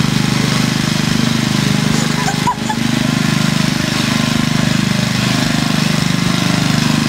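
Petrol walk-behind rotary lawn mower running steadily at full throttle as it is pushed across grass, with a brief dip in level about two and a half seconds in.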